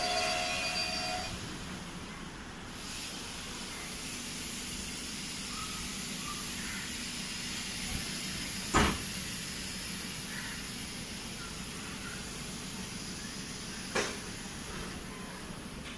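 Steady rumble and hiss of a moving passenger train heard from inside a coach, with a high tone fading out in the first second or so. Two sharp knocks cut through it, the louder about nine seconds in and a lighter one about five seconds later.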